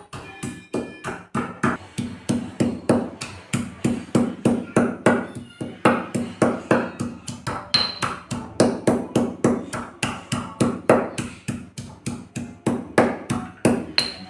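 Pestle pounding in a small mortar (khalbatta), steady strokes at about three to four a second, crushing raw red chillies and garlic for a chutney.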